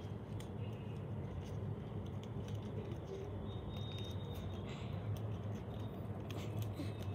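Origami paper rustling and crackling faintly as flaps are folded and creased down by hand, with a slightly fuller rustle about five seconds in, over a steady low hum.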